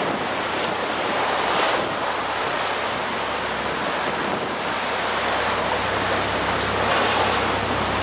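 Sea water rushing and splashing against a moving boat, surging louder twice, with wind buffeting the microphone and a steady low hum underneath.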